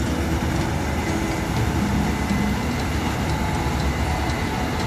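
Case IH combine harvester running at working speed as it moves off to resume harvesting soybeans: a steady, quite loud engine and machinery drone with a faint high whine.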